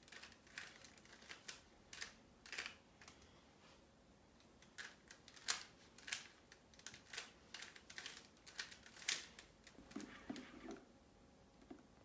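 Plastic 3x3 Rubik's cube being turned by hand: a quick, irregular run of clicks and clacks as its layers snap round. There is a short pause early on, and a few duller knocks near the end.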